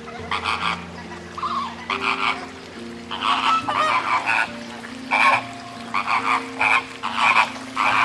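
A flock of flamingos calling: a busy run of short, nasal honking and gabbling calls, many overlapping. Steady held low notes of background music sit underneath.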